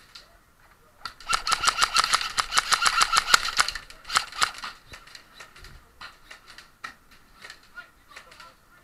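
Airsoft gun firing a long full-auto burst of about two and a half seconds, starting about a second in, a fast rattle of around ten shots a second, followed by scattered single shots.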